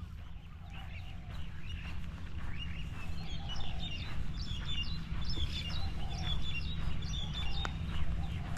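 Birds chirping and calling, with a quick run of repeated high chirps from about three seconds in, over a steady low rumble.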